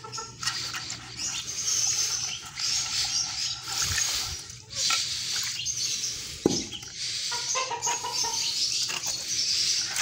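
Water splashing and sloshing in a shallow clay water dish as it is handled and scrubbed, coming in spells of hiss with short gaps between them.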